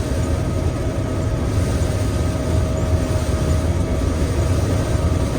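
Gleaner M2 combine running steadily while harvesting soybeans: an even low drone with a few constant higher tones over it.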